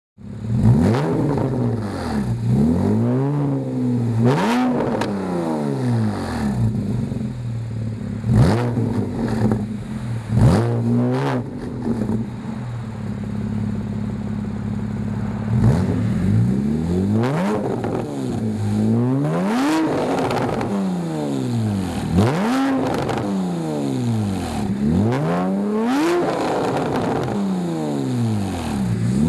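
Porsche 981 Boxster S 3.4-litre flat-six exhaust being free-revved, a series of quick blips that rise and fall back to idle, with a few seconds of steady idle about halfway through.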